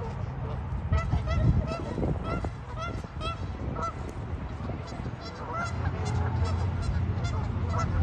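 Two Canada geese honking over and over, a string of short, upward-sliding honks, with a low rumble underneath.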